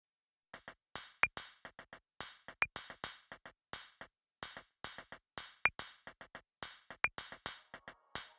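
Opening of an electronic track: after a brief silence, a rhythm of short, hissy percussion hits starts, with a bright, high blip recurring among them. A sustained synth chord comes in near the end.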